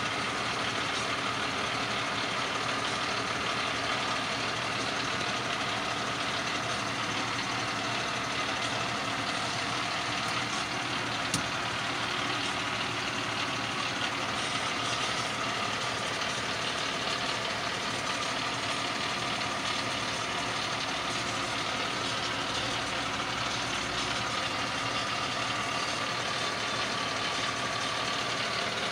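Concrete mixer truck's diesel engine running steadily, with one brief click about eleven seconds in.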